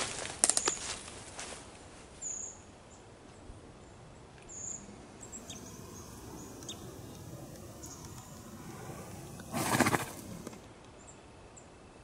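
Horse's hooves stepping through dry fallen leaves in the first second or so, then short high bird chirps every second or two. About ten seconds in comes a loud rustling burst lasting about a second.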